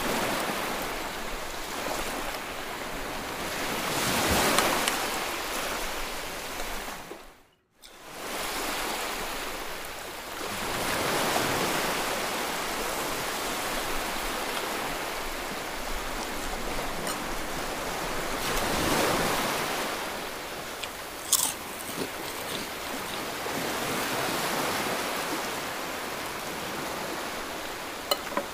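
A person chewing and biting fried fish and rice over a steady rushing noise that swells and eases every several seconds. The sound cuts out for a moment about a quarter of the way in, and a sharp click comes about three quarters of the way through.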